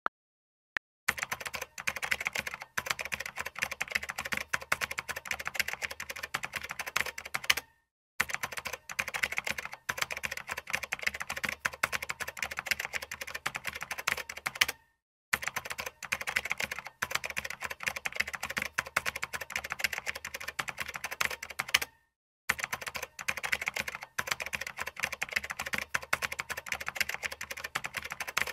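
Rapid keyboard typing: fast, dense clicking in four stretches of about seven seconds, each broken off by a short silence.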